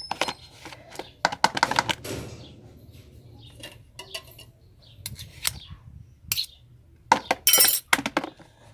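A utensil clinking and scraping against a container in irregular clusters of sharp clicks while a flour and boric-acid-water slime mixture is stirred.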